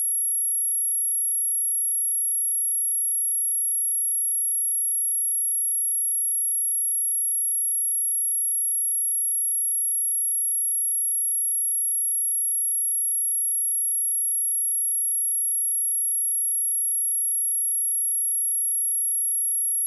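Pure sine-wave test tone at 11,235 Hz, a single steady high-pitched tone that never changes. It is a speaker test and speaker-cleaning tone, played to check speakers and to shake water and dust out of them.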